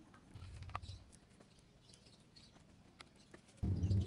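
Small clicks and scrapes of a wooden stick stirring resin in a plastic cup, with faint high chirps behind. Near the end a louder low rumble starts suddenly.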